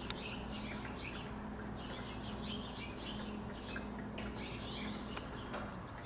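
Small birds chirping and twittering in a busy overlapping chatter, over a steady low hum.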